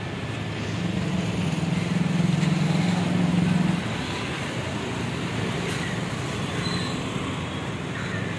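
Motor vehicle engine running with a steady low hum, which swells about a second in and drops back a little before the four-second mark.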